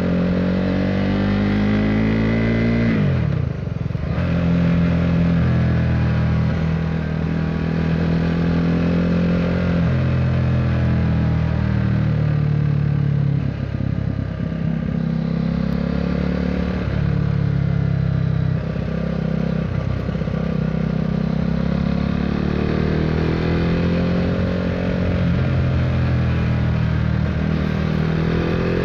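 KTM Duke 390's single-cylinder engine through an Akrapovic racing-line exhaust while riding, its revs rising and falling through the gears. The revs drop sharply about three seconds in, and the engine pulls up again near the end.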